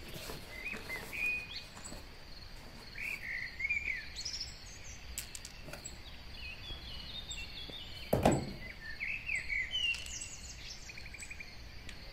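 Birds chirping in the background, in short repeated calls over a steady high tone, with a few light clicks of handling and one thump about eight seconds in.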